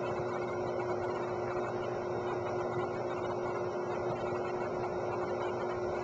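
Steady hum and hiss with one constant low tone running through it, unchanging throughout.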